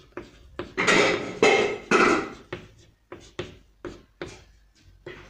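Chalk writing on a blackboard: a run of short taps and scratchy strokes, loudest and densest for about a second and a half starting about a second in.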